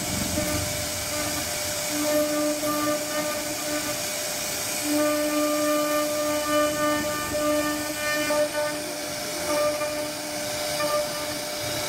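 CNC router spindle carving a wooden door panel: a steady whine at one fixed pitch over the hiss of the bit cutting wood. The whine swells and fades several times as the bit works through the cut.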